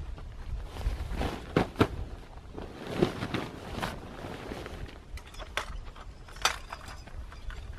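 Canvas tent fabric rustling as it is lifted and shifted, with sharp knocks and clanks from handling the metal tent poles scattered through.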